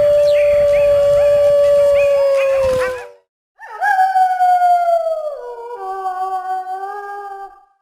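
Wolf howling: one long, steady howl that ends about three seconds in, then after a short pause a second howl that falls in pitch, with a lower howl joining it about two-thirds of the way through.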